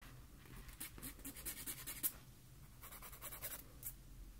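Quick, crisp scratching and tapping sounds close to the microphone, coming in two bunches of rapid strokes with a short pause between them.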